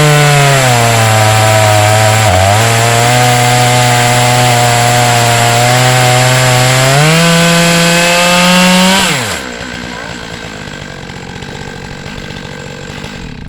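Chainsaw running at full throttle in an Alaskan chainsaw mill, ripping a log lengthwise. The engine pitch sags as it bogs under load in the cut, picks back up about seven seconds in, then drops sharply about nine seconds in as the throttle is let off and the saw falls back to a quieter idle.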